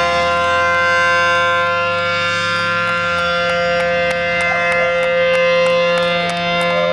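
Siren sounding one long, steady tone with many overtones at the start of a road race.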